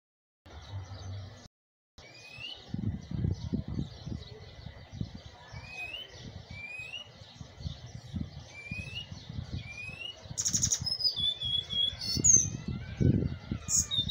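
Caged Cuban bullfinch (negrito) singing: a run of short rising whistled notes about a second apart, then a faster, more varied phrase of higher notes, trills and a buzzy note, over an uneven low rumble.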